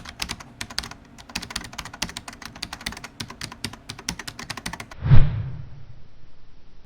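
Fast typing on a Logitech MX Keys keyboard, a quick run of light key clicks, about eight a second. About five seconds in the typing stops and a single deep boom, the loudest sound, dies away over a second and a half.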